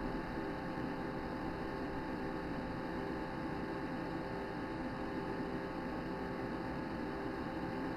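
Steady electrical hum with several fixed tones over an even hiss.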